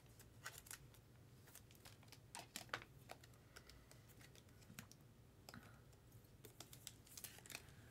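Near silence, broken by faint, irregular small clicks and rustles: a plastic-sleeved baseball card being slid into a rigid plastic top loader.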